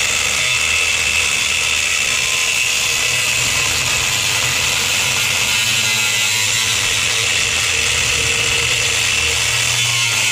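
Corded electric angle grinder running steadily under load, its disc grinding into aluminum square tube. The noise is loud and unbroken throughout.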